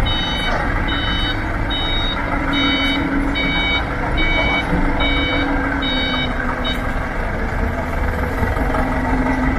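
A vehicle's reversing alarm beeping about once every 0.8 seconds, then stopping near the end, over the steady running of its diesel engine.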